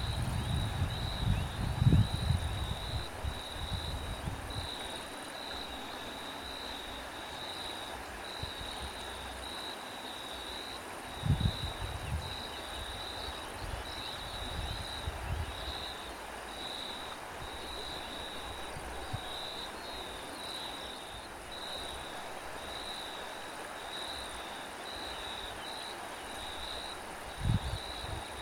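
Crickets chirping in a steady, regular pulse of high chirps. Wind buffets the microphone in low gusts, strongest in the first few seconds, with short gusts about a third of the way in and near the end.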